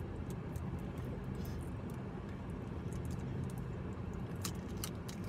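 Steady low hum inside a car, with a few soft clicks and crinkles from eating and handling food.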